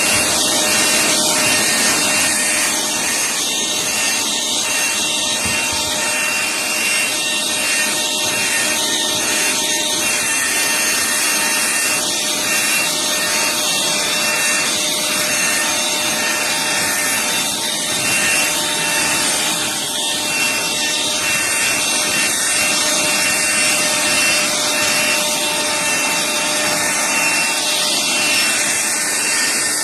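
Black+Decker Dustbuster cordless handheld vacuum running continuously: a steady rush of air with a constant motor whine on top, cutting in suddenly.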